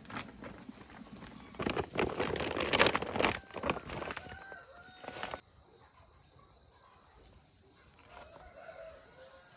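Chickens calling, with a loud rustling noise about two to three seconds in. The sound drops away suddenly about five seconds in, leaving faint calls near the end.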